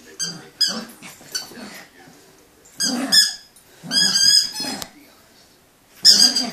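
Papillon dog growling playfully in short bursts while biting a rubber toy, with high-pitched squeaks mixed in.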